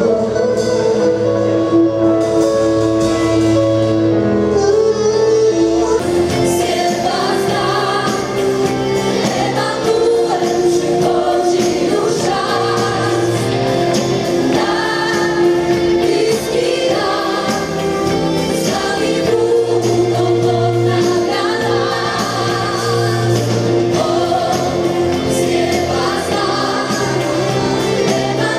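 Gospel choir singing with a live band; a steady beat and bass join about six seconds in.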